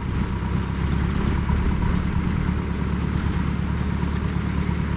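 Tractor engine running steadily at an even speed, a low, unchanging engine note.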